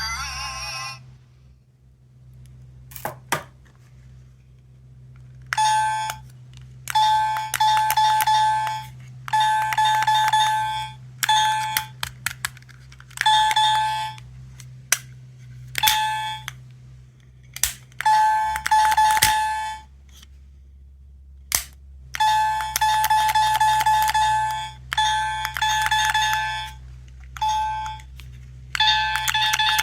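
Small electronic sound toy from a capsule machine, pressed over and over: a few clicks, then repeated short electronic doorbell-like chime tones. Each tone stops abruptly and starts again, some lasting about two seconds.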